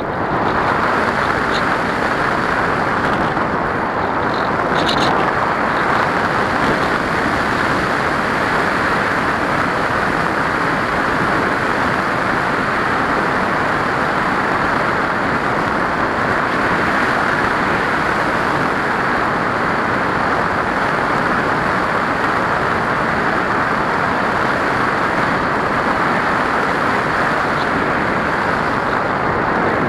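Steady rush of air over the onboard camera of a ParkZone Radian RC glider in flight.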